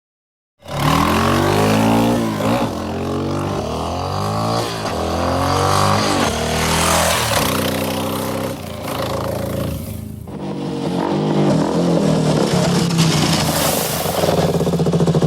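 Motorcycle engine accelerating, its pitch rising in several sweeps that drop back as it shifts up through the gears. It dips briefly about ten seconds in, then runs on with a fast, even pulsing beat.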